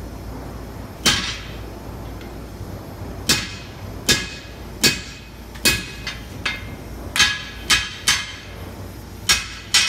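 Hand hammer striking a punch driven into a red-hot 20 mm steel bar on an anvil: about a dozen sharp metallic blows at an uneven pace, each with a short ring.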